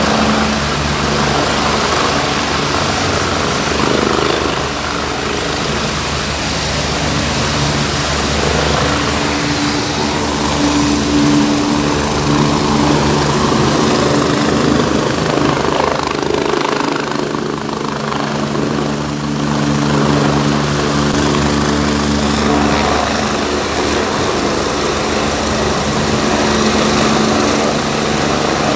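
Helicopter running on the ground during its engine warm-up: a steady, even turbine-and-rotor drone with a constant low hum, whose low end thins briefly a little past halfway.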